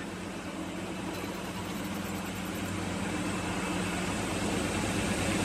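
Metal lathe running, spinning a diesel pump camshaft: a steady machine hum with an even hiss over it, slowly growing louder.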